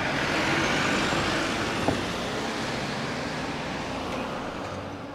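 A van driving past close by, its engine and tyre noise swelling over the first second or so and then fading into the general street traffic. A single short click comes about two seconds in.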